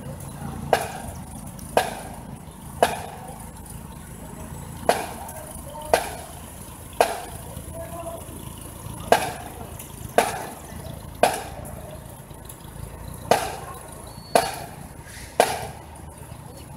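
Marching drum beating a parade cadence: sharp strikes about a second apart in groups of three, each followed by a one-beat rest, repeating, over steady street rumble.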